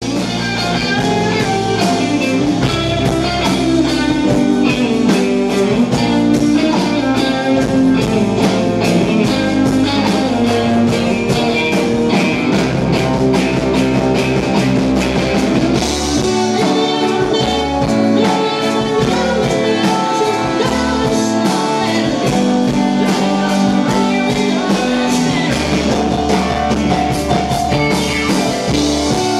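Live R&B band playing, electric guitars over bass and drums, amplified through the club PA.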